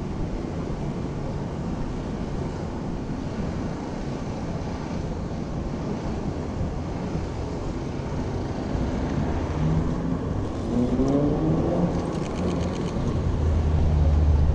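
City street traffic: a steady hum of passing cars. About ten seconds in, an engine rises in pitch as it speeds up. Near the end a louder low rumble comes in.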